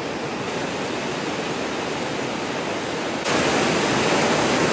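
Steady rush of a creek waterfall, a continuous noise that jumps suddenly louder a little over three seconds in.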